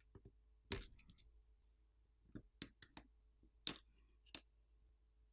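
Flex-cable connectors on a smartphone's main board being popped off with a plastic pry tool: about eight small, sharp clicks, the loudest about a second in.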